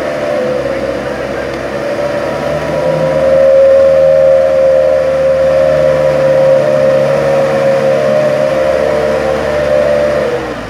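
Diesel light truck's engine held at high revs, a loud steady strained note as the truck pulls forward through deep mud; the revs drop away near the end.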